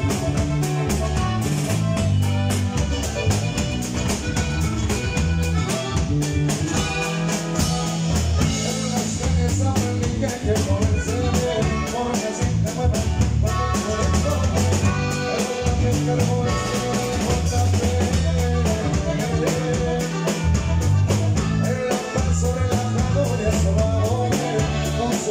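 Live band playing: guitar, electric bass and drum kit, with heavy bass notes under a steady drum beat.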